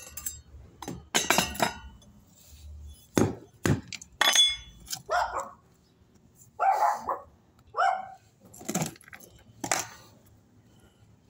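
A dog barking several times, mixed with sharp metallic clinks and knocks from handling a steel storm-drain grate.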